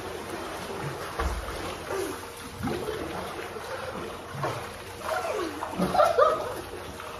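Pool water splashing as people swim, with voices calling out over it, loudest about six seconds in.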